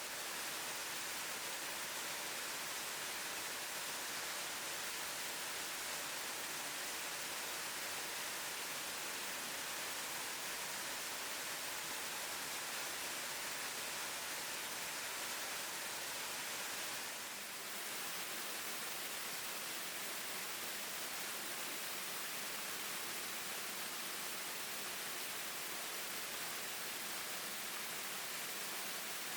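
Spring-fed waterfall: water pouring and splashing over rock as a steady, hissing rush, with a brief slight dip about seventeen seconds in.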